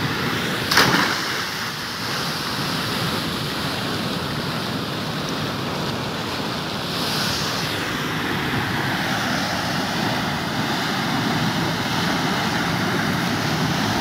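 Turbulent water pouring out of a brick culvert into a canal channel, a steady churning rush. A single splash about a second in as a boy jumps into the water.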